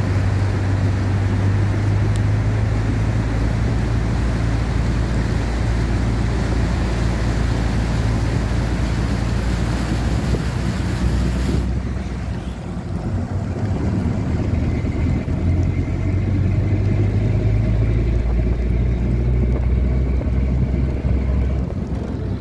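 A vehicle's engine runs with a steady low hum while its tyres push through floodwater on the road, throwing up a loud rushing, splashing noise. About halfway through, the rush of water drops away suddenly, leaving the engine hum and the hiss of tyres on wet road.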